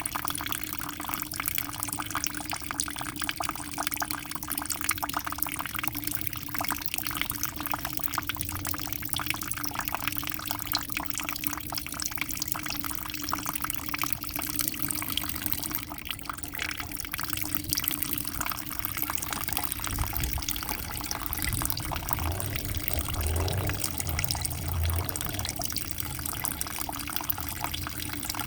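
Aquarium water bubbling and trickling steadily, a dense fizzing wash of small splashes. A low rumble joins it about twenty seconds in.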